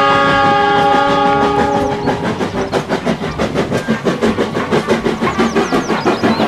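Steam locomotive's chime whistle blowing a steady chord that cuts off about two seconds in, then the locomotive's rapid, even exhaust chuffs as it works its train past.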